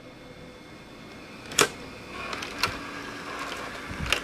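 Sharp mechanical clicks from a Panasonic AG-450 S-VHS camcorder's controls and tape mechanism: one about a second and a half in, another about a second later, and one near the end, over a low mechanical hum with a faint whine that sets in about two seconds in.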